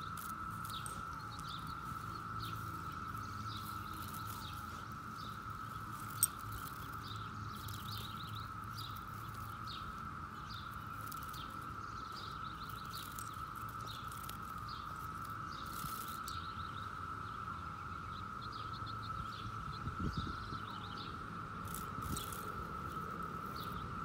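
Brood X periodical cicadas droning in a steady, unbroken chorus at a single high pitch, with birds chirping over it. A single sharp click about six seconds in.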